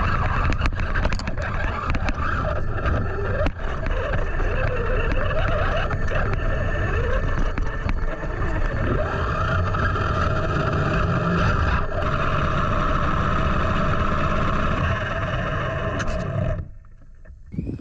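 Tekno RC monster truck's electric motor and drivetrain, picked up by a camera mounted on its body: a continuous low rumble with a whine that wavers in pitch, cutting off about 16½ seconds in. The truck is malfunctioning: it won't drive properly, and at times it drives on its own.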